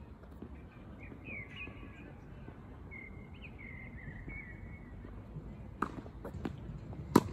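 Tennis ball struck with rackets: a faint hit from the far end of the court about six seconds in, a smaller knock, then a sharp, loud racket hit near the end. Before that, a bird chirps in short phrases.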